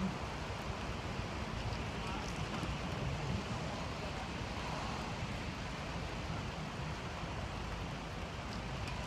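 Steady low rumble of idling vehicle engines and traffic, with faint indistinct voices.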